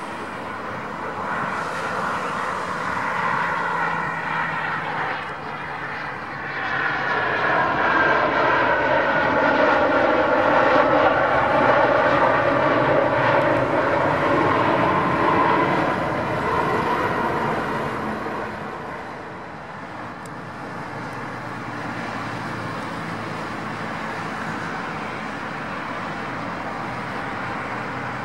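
Gulfstream G550 business jet's Rolls-Royce BR710 turbofans on landing: about seven seconds in the engine noise swells and stays loud for some ten seconds as the jet rolls out on the runway in reverse thrust, with a whine gliding down in pitch as the engines wind down. In the last third the engines of another G550 run steadily at taxi power.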